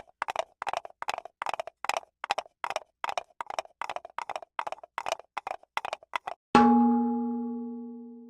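Cartoon sound effect: a run of short hollow knocks like a wood block, about two and a half a second, followed about six and a half seconds in by a single bell-like ding that rings out and fades.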